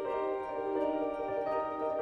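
Soft instrumental background music of sustained, overlapping notes.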